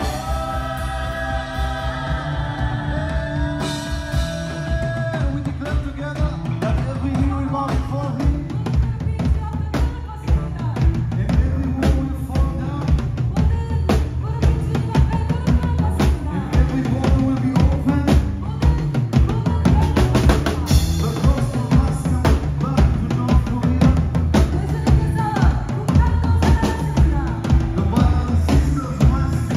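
Live band playing worship music: drum kit, electric guitars and bass. Held notes open it, and after about six seconds the drums come in with a busy, driving beat.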